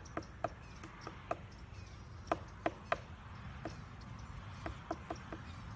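Pileated woodpecker pecking at a bat house: about a dozen sharp, separate knocks at an uneven pace, each with a short hollow ring, the loudest few coming close together a little past the middle.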